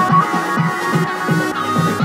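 Electronic background music with a steady pulsing beat and a synth melody.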